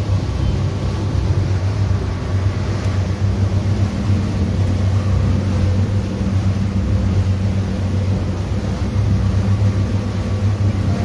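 Steady low rumble and engine drone of a moving vehicle, heard from on board.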